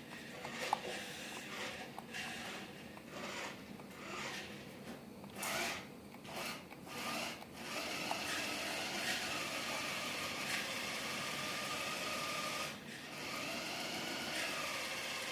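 Electric drive motor of an RC Dodge Charger SRT Hellcat toy car whining in short bursts as the throttle is blipped. From about eight seconds in it runs at a steady whine, drops out briefly near the end, then picks up again.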